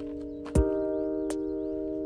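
Background music: a held, bell-like chord with a drum hit about half a second in and a lighter tap later.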